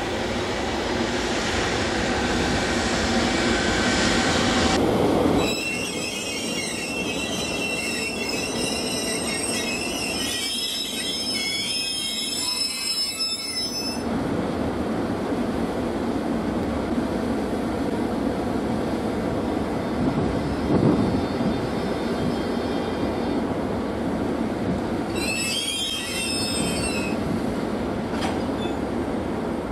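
An EF510 electric locomotive moving slowly through a freight yard, with a steady rumble and hum. Its wheels squeal high on the track from about five seconds in until they stop abruptly around halfway. A shorter squeal comes near the end as it eases up to the container wagons to couple.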